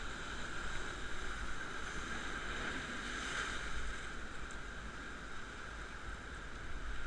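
Sea surf breaking and washing over shore rocks, a steady rush with wind rumbling on the microphone.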